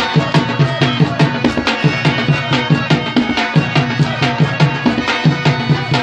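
Live Pashto folk music: a hand-played dholak barrel drum keeps a quick, steady beat over the sustained reeds of a harmonium, with a rubab among the instruments.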